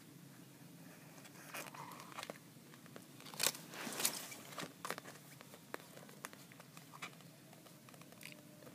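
Clear plastic blister tray of silver bars crinkling and clicking as a hand presses and moves it: scattered crinkles, with two louder cracks about three and a half and four seconds in.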